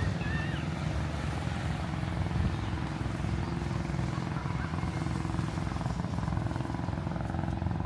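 A motor engine running steadily with a low rumble, and a short high chirp near the start.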